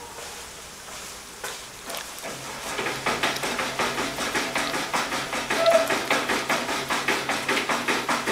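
Rapid, irregular patter of many sharp taps, starting about two seconds in and building louder.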